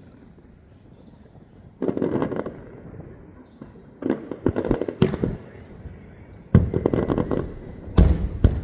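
Fireworks going off in clusters: bursts of rapid crackling pops about two, four and six and a half seconds in, with single sharp bangs around five seconds and twice near the end.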